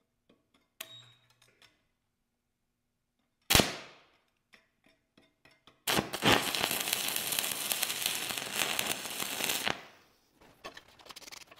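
Stick welding arc from a 3/32-inch 7018 electrode run on the high side at about 105 amps for a hot tack weld, crackling steadily for about four seconds and then dying away. A single sharp knock comes a couple of seconds before the arc.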